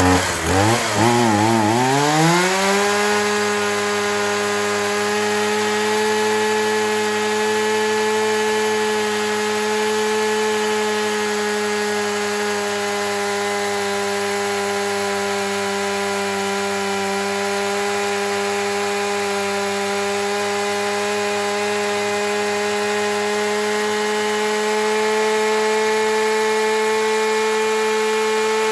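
Komatsu 3500 35cc two-stroke chainsaw, just started: the engine wavers and then climbs over the first couple of seconds to a steady high-revving run with the chain spinning, held there, a little louder near the end.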